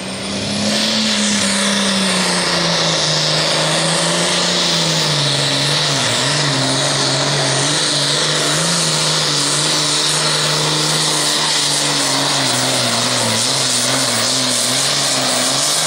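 A Case IH Super Farm pulling tractor's turbocharged diesel engine at full throttle as it drags the weight-transfer sled down the track. It comes up to full power about half a second in and stays loud and steady, its pitch slowly sagging and wavering under the load.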